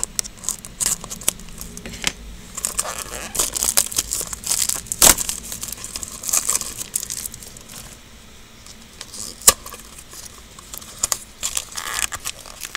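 Cardboard and plastic packaging of a Shopkins Season 3 pack crinkling and tearing as it is worked open by hand, with irregular rustles and clicks. Two louder clicks come about five seconds in and again near the nine-and-a-half-second mark, with a quieter lull just before the second.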